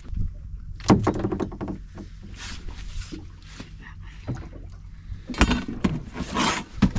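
Handling noise on a boat deck: a few sharp knocks and short rustling bursts as a caught fish is taken off the hook and held up, over a low steady rumble.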